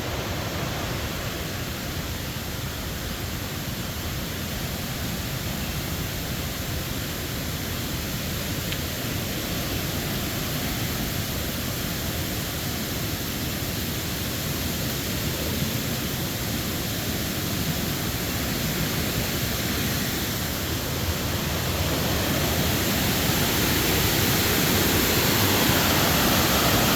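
Steady rush of the Falling Water River's cascades and falls, growing louder over the last few seconds.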